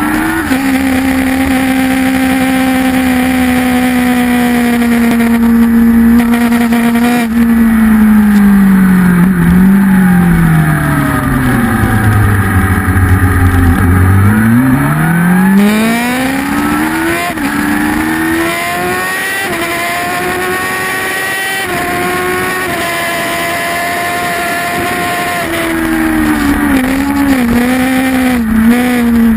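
Kawasaki ZX-10 race bike's inline-four engine heard on board at racing speed. It holds high revs, then the revs fall steadily as the rider slows for a corner, and climb again through several upshifts. Near the end the revs dip and pick up a few times as it changes down.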